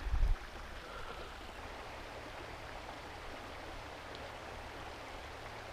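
Small creek flowing steadily, an even rushing hiss, with a brief low thump right at the start.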